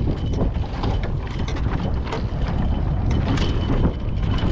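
Wind rumbling on the microphone aboard a sailboat, with irregular clicks and rattles from the boat's hardware.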